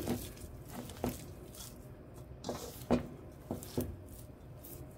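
A hand mixing sliced onions and chopped dill leaves into dry gram flour and rice flour in a steel bowl: soft rustling and squishing, with several short, irregular knocks and crunches.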